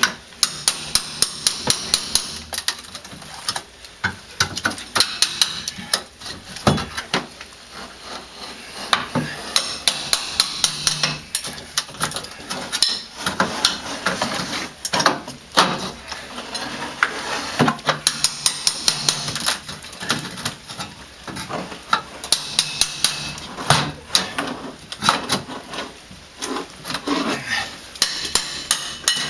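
Hammer blows on an old door frame in quick runs of several strikes, with scraping and rattling between them, as the old entry door is worked loose for removal.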